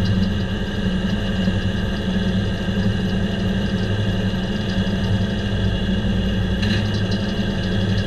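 Diesel engine driving a circle sawmill, running steadily with a low, even hum.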